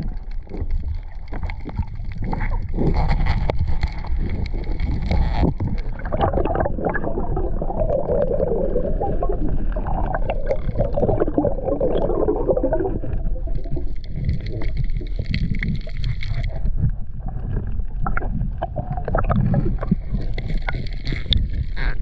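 Water gurgling and sloshing heard through an underwater action camera, with scattered clicks and knocks throughout and a denser stretch of gurgling through the middle.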